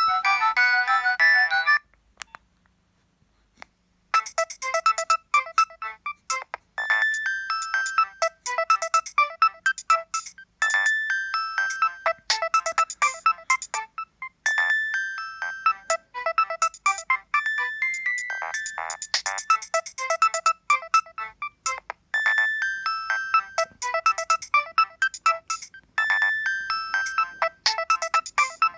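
Nokia 7250i mobile phone playing its preloaded ringtones. One tune cuts off about two seconds in, and after a short pause and a click a new ringtone melody of short, sharp notes starts, repeating its phrase every few seconds.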